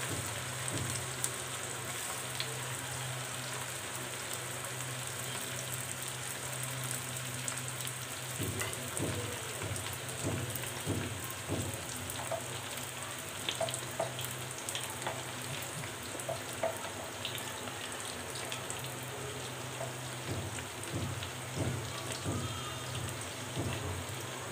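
Pastry-wrapped chicken fingers deep-frying in oil in an iron karahi: a steady crackling sizzle with scattered small pops, over a low steady hum.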